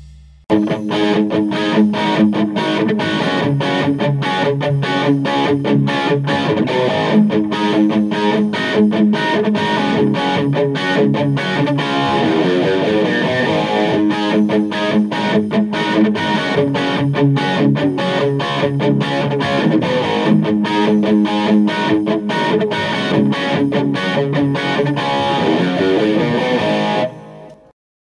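Electric guitar played through a valve guitar amplifier running ECC83/12AX7 preamp tubes, picked notes and chords. It starts about half a second in and stops about a second before the end.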